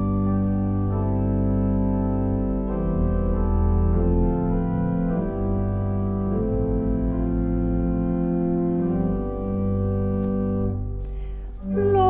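Church organ playing a hymn introduction: slow, sustained chords that change about every second over held low pedal notes.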